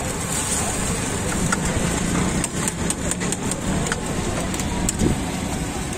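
Egg frying on a flat-top griddle with a steady sizzle, and metal clinks as a spoon scrapes a steel bowl, a cluster of them in the middle. Beneath it a steady low mechanical hum.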